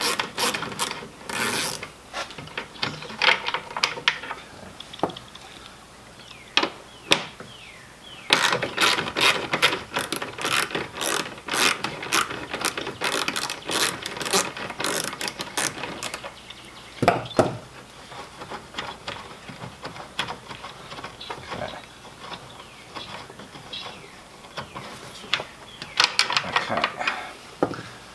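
Socket ratchet with a 10 mm socket clicking fast as it loosens a taillight's bolts. It comes in three runs: a short one at the start, a long one in the middle, and another near the end, with a single knock after the long run.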